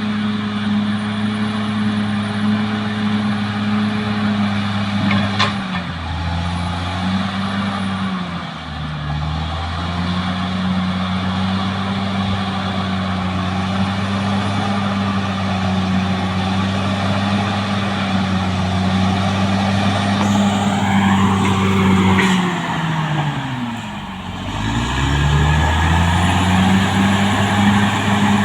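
Caterpillar D6R XL bulldozer's diesel engine running steadily at work. Its pitch sags and recovers twice, the second time dropping deep about three-quarters of the way through, with a faint high whine above it.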